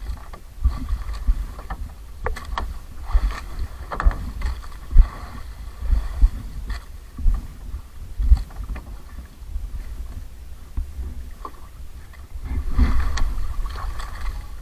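Wind buffeting the microphone and choppy waves slapping against the hull of a small wooden outrigger boat (bangka), with irregular sharp knocks and splashes. The water noise grows louder about twelve seconds in.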